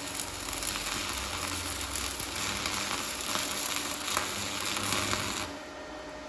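Stick (MMA) arc welding with a TOPSHAK ZX7-200 inverter welder: the electrode arc crackles and sizzles steadily, then stops about five and a half seconds in, leaving a quieter faint hum.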